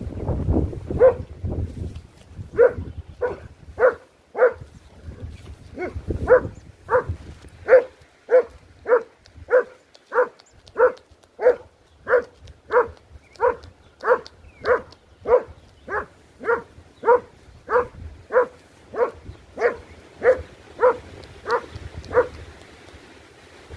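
A dog barking over and over in an even rhythm, about three barks every two seconds. A low rumbling noise comes in under the first few barks.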